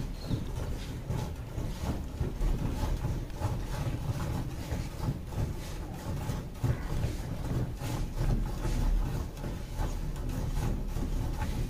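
A cow being milked by hand into a steel pail: short squirts of milk in a quick, uneven rhythm, over a low steady rumble.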